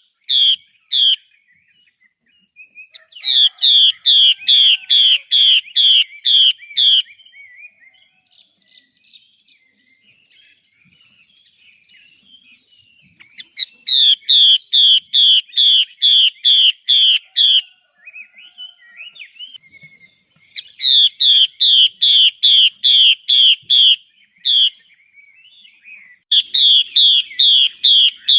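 Female hwamei (Chinese hwamei, melodious laughingthrush) calling in bouts of rapidly repeated, downward-sliding whistled notes, about three a second, with pauses of a few seconds between bouts and faint twittering in the gaps.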